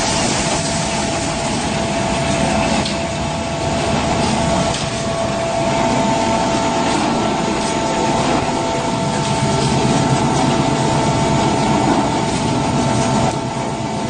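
Machinery of a concrete mixer pump set-up running steadily: a continuous engine drone with two steady, high whining tones over it, and a few faint knocks.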